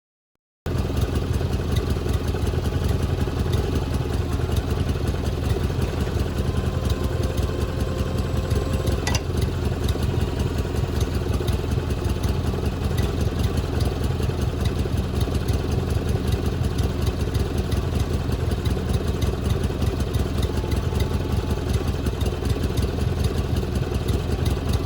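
Wood-Mizer LT40 sawmill's engine running steadily, not yet cutting. It starts abruptly about half a second in, and there is a faint click about nine seconds in.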